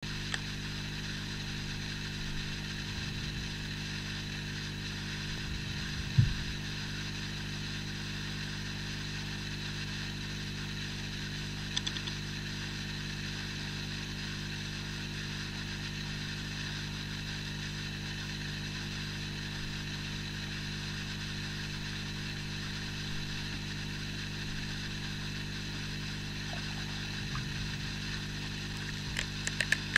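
Air-driven protein skimmer of a TMC Microhabitat 30-litre aquarium running, a steady mechanical hum, working as it should. A single knock about six seconds in, and a few light ticks near the end.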